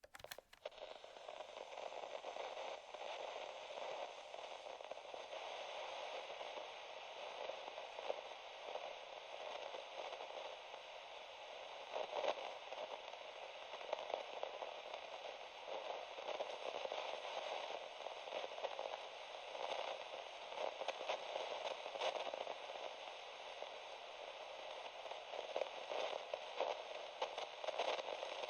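Radio static: a steady hiss with frequent crackles and pops, like a radio tuned between stations.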